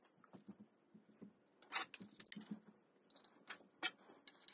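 Faint clicks, clinks and scrapes of a metal cabinet hardware jig and its steel rulers being handled as the extended ruler attachment is fitted, with a few sharper clicks in the middle and one near the end.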